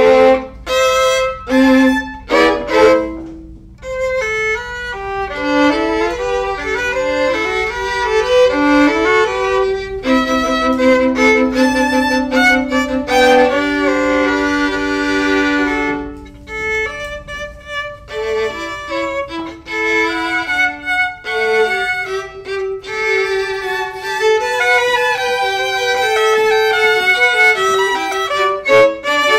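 Violin music: a melody of quick runs and longer held notes, broken by a few short pauses, one a few seconds in and another near the middle.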